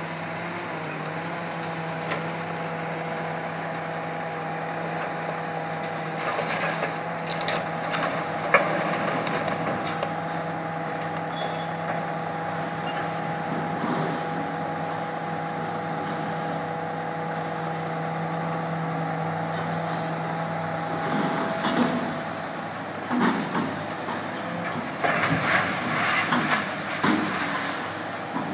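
Grapple excavator's engine and hydraulics run with a steady drone and whine while it handles sheet-metal cooling-tower parts. There are metal clanks and knocks about seven to nine seconds in, then a longer run of clanks and bangs over the last several seconds as the grapple swings its load onto the scrap pile.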